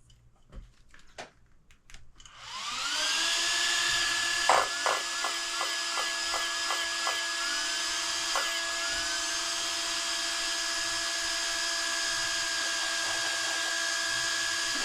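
A few light clicks, then a Traxxas XRT's electronics power up: a steady electric whine that rises in pitch as it starts and then holds. A run of about nine short chirps sounds over it a few seconds in.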